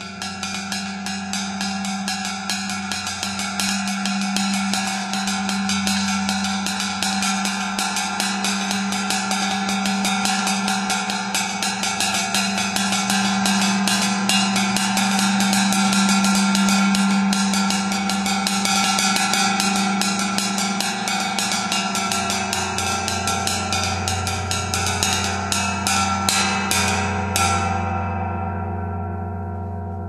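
26-inch vintage Zildjian Turkish tam-tam played with a fast roll of wooden drumsticks, its shimmering wash swelling louder over the first several seconds above a steady low hum. Near the end the strokes stop and the tam-tam rings on, fading.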